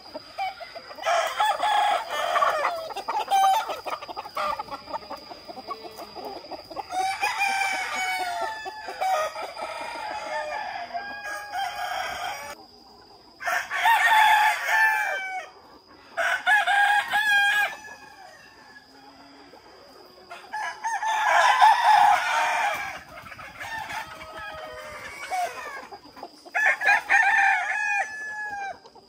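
A flock of roosters crowing again and again, one long crow after another, with hens and roosters clucking in between.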